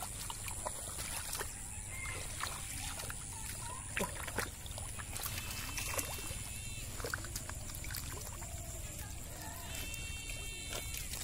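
Hands sloshing and squelching through shallow muddy water and soft mud, with scattered small splashes, as a person gropes for fish by hand.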